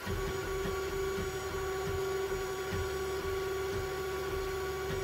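Anycubic FDM 3D printer running mid-print with its enclosure door off: a steady hum with fainter higher tones over it, and a low whirr that shifts in short pulses as the stepper motors move the head and bed.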